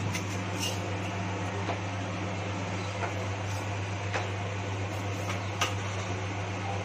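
Fenugreek seeds sizzling in hot oil in a kadhai, with a few scattered crackles, over a steady low hum.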